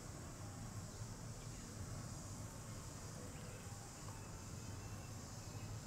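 Steady outdoor ambience: a constant high-pitched insect drone over a low rumble, with a few faint short tones scattered through it.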